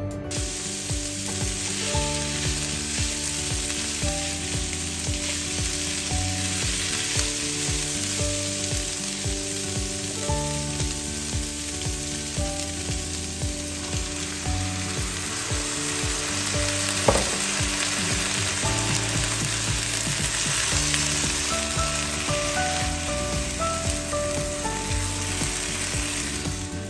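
Green beans, onion and crab sticks sizzling steadily as they sauté in a hot stainless steel wok. A single sharp knock stands out about two-thirds of the way through.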